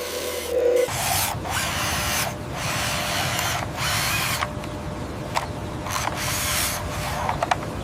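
Small electric motor whirring and grinding like a drill, in repeated surges with brief dips between them, with a few sharp clicks near the end.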